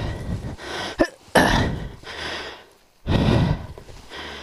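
Heavy, uneven breaths and grunts close to a helmet-mounted microphone, in three bursts about a second long, with rustling and scraping, as the rider struggles with a dirt bike lying on its side.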